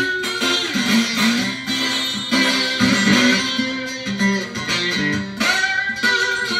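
Amplified archtop guitar playing an instrumental blues intro of picked, ringing notes and chords.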